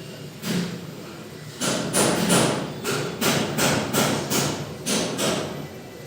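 A run of quick knocks or taps, about three a second, growing louder about one and a half seconds in.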